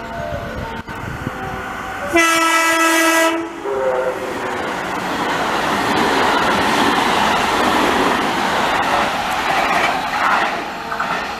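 JR West 287-series electric limited express sounding one horn blast of about a second and a half, then passing close by with a steady rush of wheels on rail that builds and fades away.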